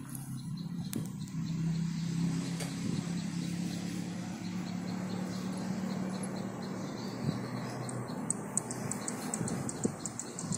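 Outdoor background: a steady low drone with a bird chirping in quick repeated high notes from about eight seconds in.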